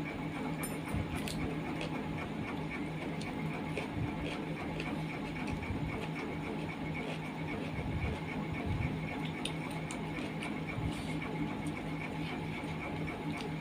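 A steady mechanical hum with a faint, regular pulsing whir runs throughout. A few soft clicks and smacks of eating by hand break through now and then.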